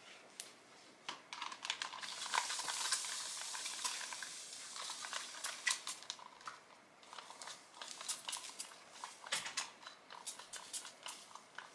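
Hands scrunching leave-in conditioner through the damp ends of a loose-wave human-hair wig: a soft wet crackling with many small clicks, busiest in two spells, early and near the end.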